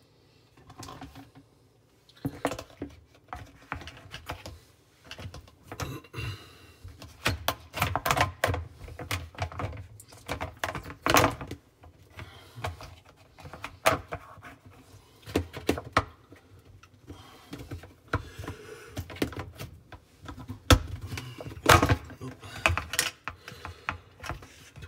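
Hard plastic dishwasher sump parts (spray-arm feed pipe, pump cover and filter housing) being handled and fitted, giving a long run of irregular clicks and knocks with a few louder knocks about eleven seconds in and again near the end.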